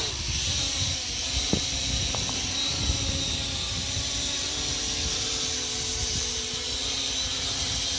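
SJRC S70W GPS quadcopter's motors and propellers whining steadily as it flies low and climbs, with wind buffeting the microphone.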